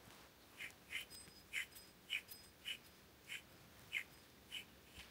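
Worn front wheel hub bearing from a 2016 VW Jetta turned by hand, giving about nine faint short scrapes at just under two a second. This slight noise is the sign of the worn bearing that is being replaced.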